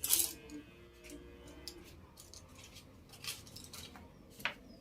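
Makeup brushes and cosmetic containers clinking and tapping as they are handled. A sharp knock right at the start rings briefly, followed by a few scattered light clicks.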